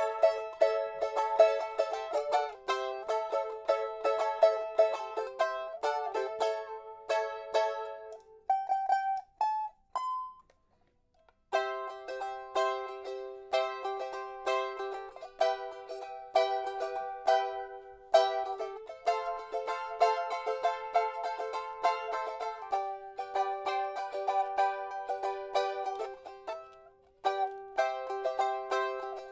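Asonu solid-body eight-string Tahitian ukulele, strung with fishing line, played unplugged: quick, bright, rhythmic strumming of chords. About eight seconds in the strumming breaks off for a few single plucked notes, then starts again about three seconds later.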